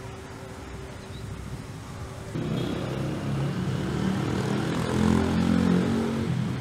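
Faint steady background hum, then a low engine drone that comes in abruptly about two seconds in and grows louder.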